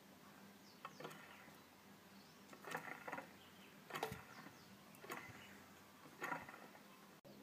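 Supercharger compressor wheel spinning freely in its housing and slowing down, faint, with a few short scratchy rasps at uneven intervals.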